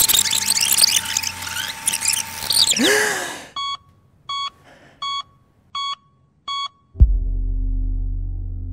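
Film sound design: a dense, glitchy electronic effect with sliding pitches that drops away in a falling sweep. Then five evenly spaced electronic beeps about 0.7 s apart, like a hospital heart monitor. About seven seconds in, a sudden deep hit opens a low steady drone.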